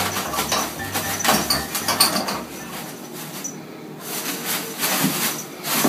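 Toilet paper rustling, and the roll knocking in its wall holder, as a kitten pulls at it and tumbles in the unrolled paper. The sound is irregular, with a quieter stretch about halfway through.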